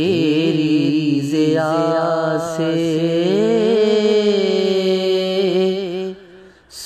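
A solo voice sings a long, drawn-out melismatic line of an Urdu naat (devotional song in praise of the Prophet). It glides up at the start, then holds notes with wavering pitch and slow bends, and breaks off shortly before the end.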